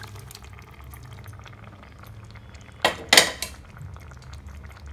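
Chunks of boiled elephant foot yam being added to a pan of curry gravy, with a brief loud clatter and splat about three seconds in, over a low steady hum.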